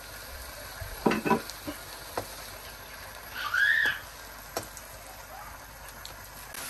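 Grated carrots and freshly added milk sizzling in a nonstick wok while a plastic masher stirs and presses them, knocking against the pan a few times. A short squeak that rises and falls sounds about three and a half seconds in.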